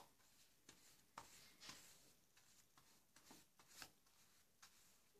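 Near silence with faint, irregular soft strokes of a wet paintbrush rubbing across the paper of a water-magic painting book.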